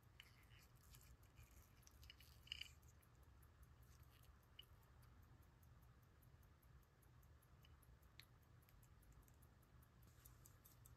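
Near silence: faint room tone with a few soft clicks, the loudest a quick pair about two and a half seconds in.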